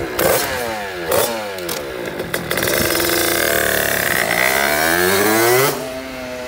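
Rieju MRT Pro's two-stroke engine, fitted with a freshly built 86 cc Top Performance aluminium cylinder kit and Voca expansion pipe and not yet run in, blipped sharply a few times and then held at high revs for about three seconds with its pitch climbing. The revs drop suddenly near the end and the engine runs on lower.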